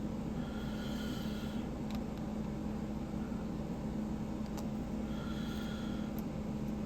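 Steady low background hum with a few faint, sharp clicks and two soft rustling passages, from small metal fidget slider parts being handled during reassembly.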